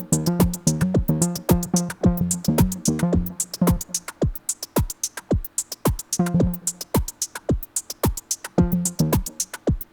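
Electronic loop played on Arturia's MS-20 V software synth, an emulation of the Korg MS-20: a drum-machine beat of kicks that drop in pitch and steady ticking hi-hats, with a synth bass line. The bass plays for about the first four seconds, then drops out, coming back only in two short phrases near the end.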